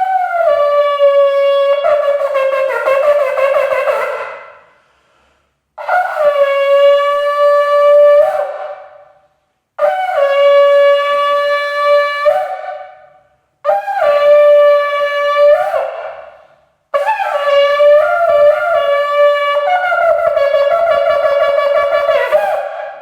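Shofar blown in five long blasts of three to six seconds each, split by short breaths, each held on one steady note and breaking upward in pitch just before it dies away; the last blast is the longest.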